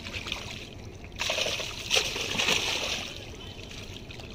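Water splashing in a sudden noisy burst of under two seconds, starting about a second in, with a sharper splash in the middle.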